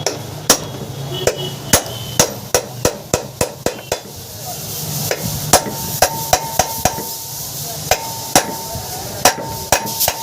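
Hammer tapping repeatedly and irregularly on an air-cooler motor, knocking it apart to get at its worn bearings, with a metallic ring after some of the blows in the second half.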